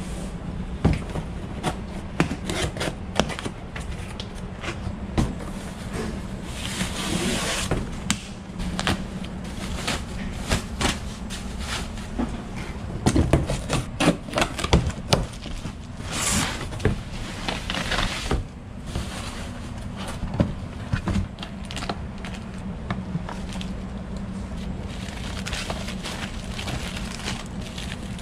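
Cardboard boxes being handled and unpacked: repeated knocks and scrapes of cardboard, with several short tearing stretches as packing tape is cut and pulled, and rustling of plastic and paper wrapping near the end. A steady low hum runs beneath.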